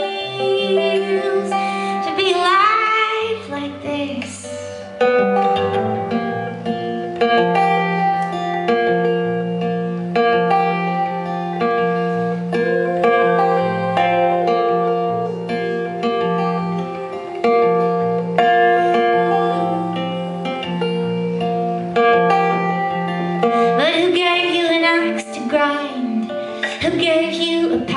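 Acoustic guitar playing an instrumental passage of plucked notes over a repeated low note. A woman's singing voice comes in briefly near the start and returns near the end.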